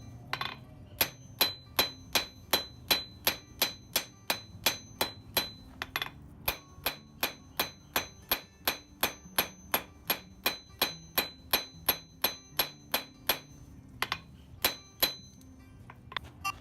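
Blacksmith's hammer striking hot steel on an anvil with the peen, drawing out the leaf lengthwise. Steady blows about three a second, each with a bright anvil ring, broken by two short pauses.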